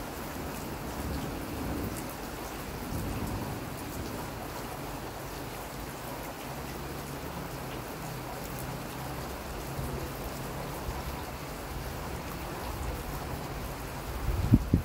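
Steady rain falling, with a low steady hum through the middle and a sudden loud low thump near the end.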